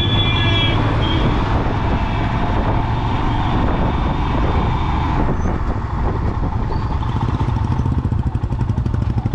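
Royal Enfield Himalayan's single-cylinder engine running at road speed as the bike is ridden, with steady road and wind noise. A short high horn-like tone fades out in the first second.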